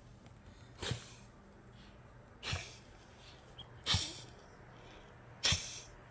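A small dog snorting sharply through its nose four times, about a second and a half apart.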